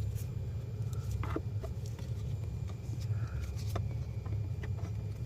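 Scattered light plastic clicks and taps as a small plastic cover over the cabin air filter housing is handled and fitted, over a steady low hum.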